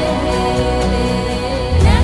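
Background music with held chords, a gliding melody line and a steady low bass.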